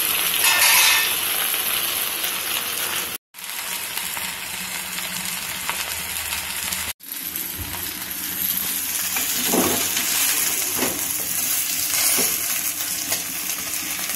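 Whole pressure-cooked chicken sizzling as it fries in a little oil in a pan, the sizzle dropping out briefly twice. In the second half a steel spatula scrapes and knocks a few times as the chicken is turned.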